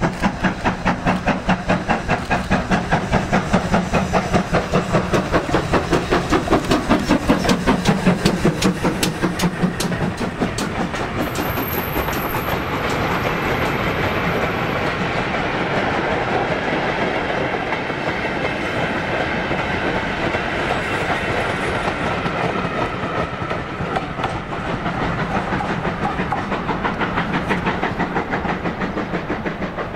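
Steam locomotive passing at speed with a goods train, its exhaust beating rapidly and evenly for the first ten seconds or so. Then the loose-coupled goods wagons roll by, wheels clicking over the rail joints, before fading away near the end.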